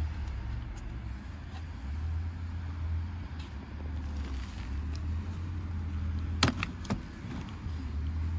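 Low wind rumble on the microphone, rising and easing in gusts, with two sharp clicks close together near the end.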